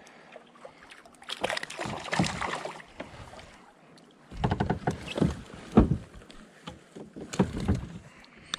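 Knocking and clattering on a fishing kayak in three bursts, each a second or two long.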